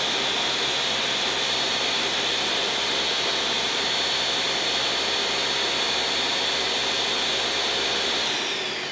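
Ninja Mega Kitchen System blender's 1500-watt motor running at full speed, blending vegetables into juice in the 72-ounce pitcher: a steady high whine over a rushing noise. Near the end it is switched off and the whine falls as the motor spins down.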